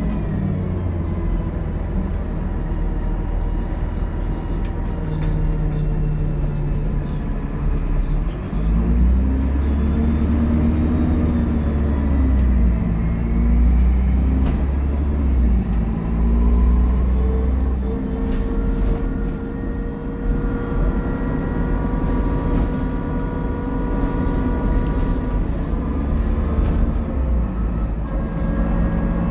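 Dennis Trident double-decker bus driven hard, its diesel engine revving up and falling back through gear changes. From about two-thirds of the way in, a rising whine from the drivetrain runs with the engine; bus fans call this whine 'hoovering'.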